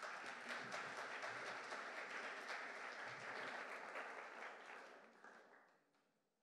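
Audience applauding to welcome a speaker to the stage, a dense patter of many hands clapping that fades out about five seconds in.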